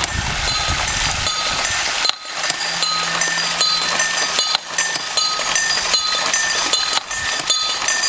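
Two small bells struck over and over by water-wheel-driven rods and clappers, clinking in a quick, uneven rhythm. A small stream rushes steadily through the wooden channels underneath.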